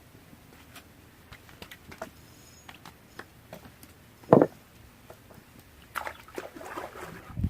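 A hooked tilapia being landed and handled: scattered light clicks and taps, one sharp knock about four seconds in, and a short watery rustling near the end.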